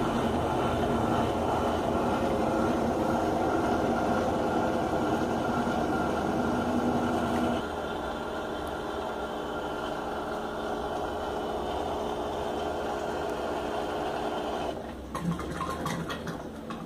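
Washing machine running with a steady motor hum and several steady tones. The sound drops a step about halfway through, drops again near the end, and then a few clicks or knocks follow.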